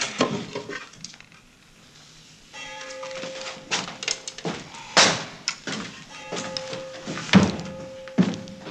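A series of sharp knocks and thuds. A steady bell-like ringing tone sounds under them from about two and a half seconds in, with a break in the middle.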